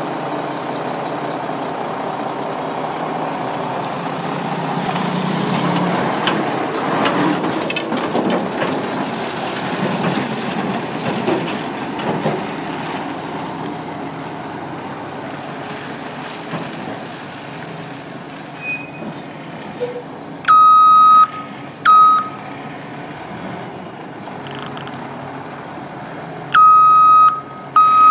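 2003 Mack RD688S tandem-axle dump truck's diesel engine running as the truck drives off, loudest in the first dozen seconds and easing as it moves away. From about twenty seconds in, its reverse alarm sounds in long, loud beeps as it begins to back up.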